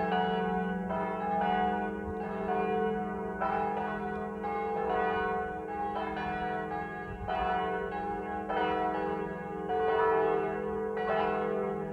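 Church bells ringing, struck about once a second. Each strike layers onto the long, steady hum of the bells still sounding.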